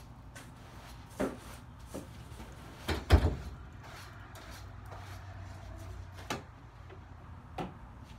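Scattered knocks and bumps from household things being handled during room cleaning: about six separate knocks, with one heavy thump about three seconds in.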